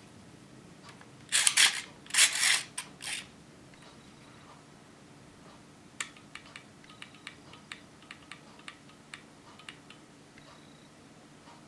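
3D-printed plastic model of a Hino-Komuro pistol being handled and worked: a few rasping slides of plastic parts in the first few seconds, then a sharp click and a run of small light clicks and taps.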